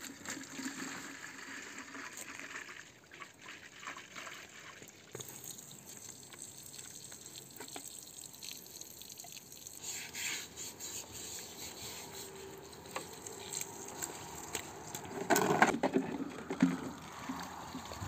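Water running from a garden hose, splashing and trickling onto carpets and concrete, louder for a moment about fifteen seconds in.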